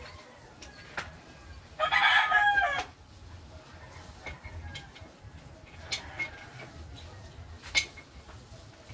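A rooster crowing once, about two seconds in, a call of about a second. A few sharp knocks are heard before and after it.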